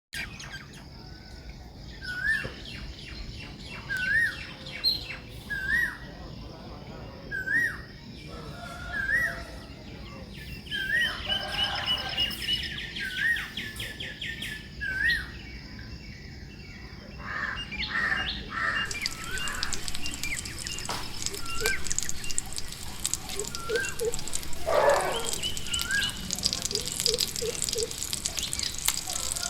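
Birds calling: one bird repeats a short whistled note, rising and falling, about every second and a half, among other chirps and trills. A steady high hiss joins past the middle.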